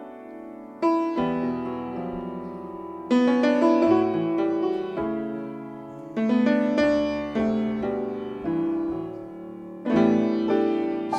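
Piano playing a slow introduction to a gospel song: chords struck every second or so, each ringing and fading before the next.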